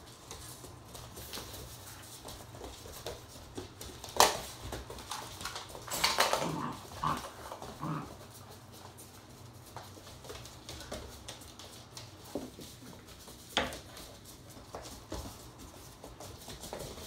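Collie puppies romping on a hardwood floor: claws pattering and scrabbling, with a cluster of short puppy vocal sounds about six to eight seconds in and a couple of sharp knocks, about four and thirteen seconds in.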